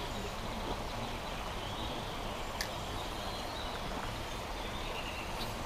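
Steady outdoor background noise by a lake, with a few faint bird chirps and a single sharp click about two and a half seconds in.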